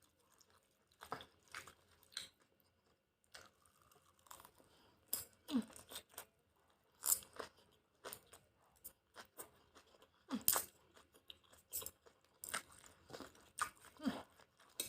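Close-up mukbang chewing of a mouthful of chicken udon: irregular wet mouth clicks and smacks, a few every second.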